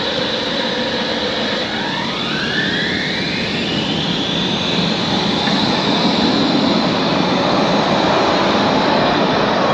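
Tram pulling away, its electric traction motors giving a whine that rises steadily in pitch over a few seconds, over continuous traffic noise that grows a little louder in the second half.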